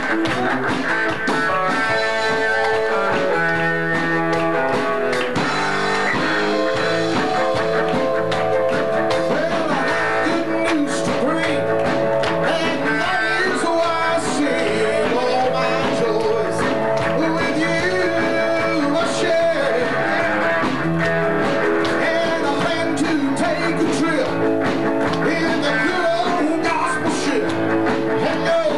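Live southern gospel music: a band of steel guitar, piano, drums and bass guitar playing, with a male vocal quartet singing in harmony over it.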